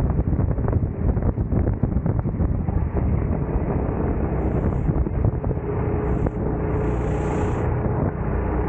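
Heavy wind buffeting on a racing kart's onboard microphone, with the kart's engine running at speed underneath. About halfway through, a steady engine tone comes through more clearly.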